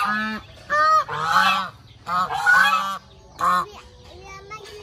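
Domestic geese honking, a run of about six loud, harsh calls in quick succession, then quieter toward the end.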